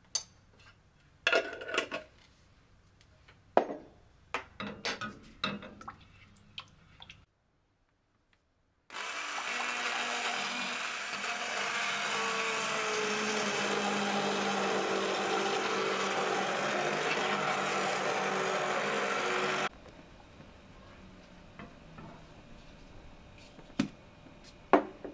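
Electric stick blender puréeing tomato soup in a stainless steel pot, running steadily for about ten seconds before cutting off suddenly. It is preceded by several sharp clicks and knocks of utensils against the pot, and a couple more knocks come near the end.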